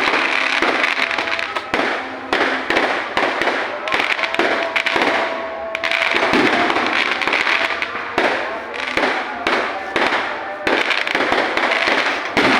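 Fireworks going off in rapid succession: a dense, continuous string of bangs and crackles, with voices and music faintly underneath.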